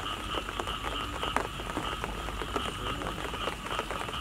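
Rain falling on mud and water, with many sharp drip ticks, over a steady animal chorus that pulses about three times a second.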